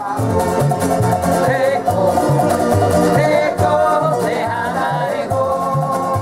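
A Polynesian string band playing: strummed ukuleles and an acoustic guitar over a plucked one-string washtub bass, with a man singing. The band keeps a steady, bouncy rhythm with a walking bass line.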